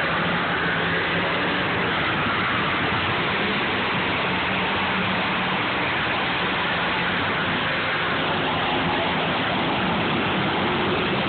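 Engines of several demolition derby cars running together in the arena, a steady, dense wash of noise with a low hum underneath and no distinct crashes.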